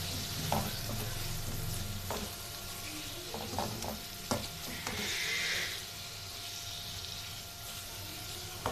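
Chicken, onion and tomato masala sizzling in a wok over a gas flame while being stirred with a spatula, which knocks and scrapes against the pan several times. The sizzle briefly gets louder about five seconds in.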